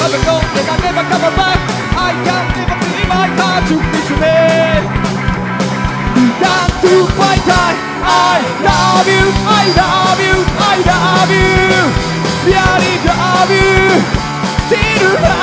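Live rock band playing: a man singing into a microphone over electric guitar, bass guitar and drums.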